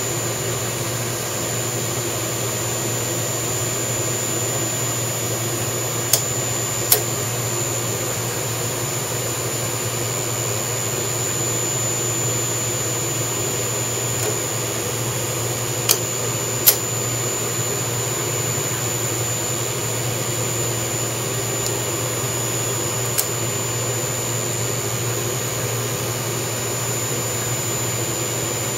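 CNC mill spindle, on a variable-frequency drive, running steadily with a low hum and a steady high whine while it drives an M5 roll-form tap in a tapping head into hole after hole. Sharp clicks cut through now and then, several of them in pairs a little under a second apart.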